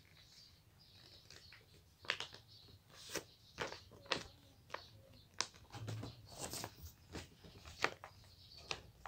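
Sheet of paper being handled and folded by hand: irregular crisp crackles and rustles, starting about two seconds in.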